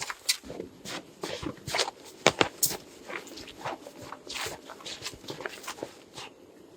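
Footsteps with irregular crunches and clicks, a few sharper ones standing out.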